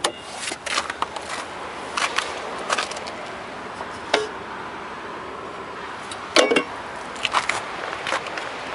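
Scattered clicks and knocks from working a car's fuel door: the floor-mounted release lever is pulled and the fuel filler door is handled. The loudest knock comes about six and a half seconds in.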